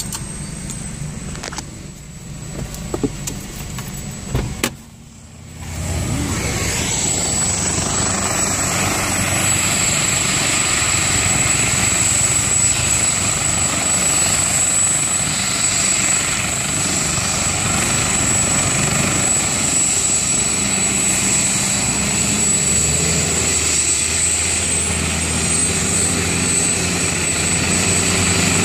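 Medical helicopter's turbine engines and main rotor running on the ground, a steady high whine over the rotor and engine noise. Quieter at first, it drops briefly about five seconds in, then runs louder and steady.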